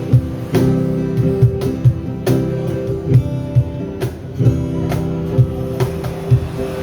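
Live band music without vocals: strummed guitar chords held over regular drum hits.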